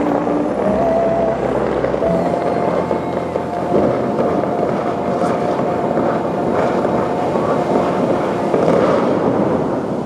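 Bellagio fountain's water jets shooting up, a steady rush of falling spray with several dull booms, over a long held final note of the show's music from loudspeakers.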